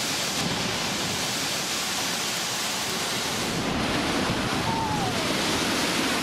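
Steady rushing of surging water, an even, unbroken noise. A faint falling cry is heard about five seconds in.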